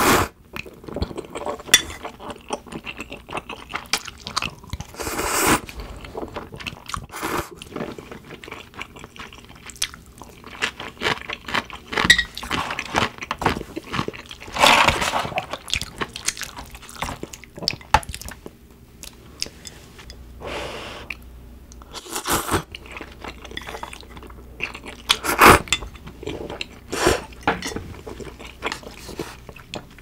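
Close-miked eating sounds: kalguksu noodles in hot clam broth slurped in several long, loud pulls, with chewing in between.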